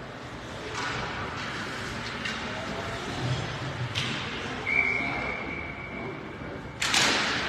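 Ice hockey rink ambience with a couple of sharp knocks, then a referee's whistle blown as one steady note for about two seconds. Near the end a sudden loud rush of noise cuts in.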